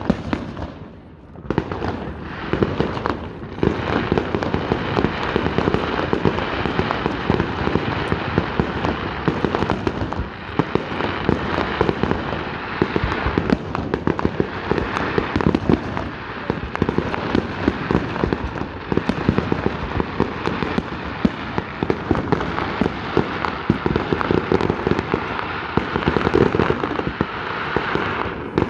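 Fireworks going off in a dense, continuous barrage of rapid overlapping bangs and crackles, after a brief lull about a second in.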